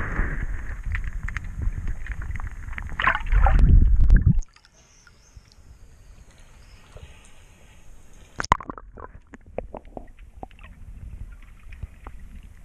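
Water sloshing and rumbling against an action camera's microphone while snorkelling, loud for about the first four seconds. It then cuts off suddenly to a quiet stretch with scattered clicks and taps, one sharp tap standing out.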